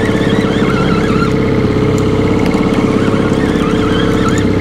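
Outboard motor running steadily at trolling speed, a continuous hum with a held tone, with faint wavering high tones over it.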